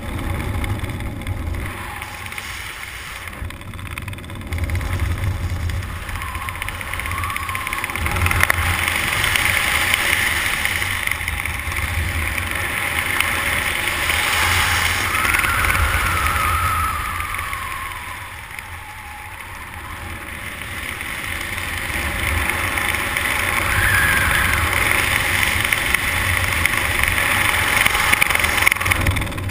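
Wind rushing over and buffeting the camera's microphone during a descent under an open parachute canopy, a steady rumble that slowly swells and eases.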